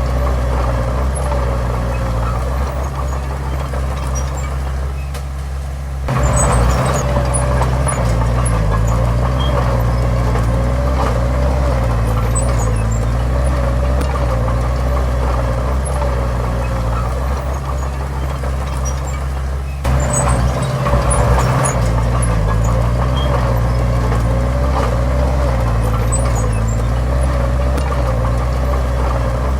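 Heavy diesel earthmoving machinery running steadily, with a wavering whine above the engine note. The sound jumps abruptly louder about six seconds in and again near twenty seconds.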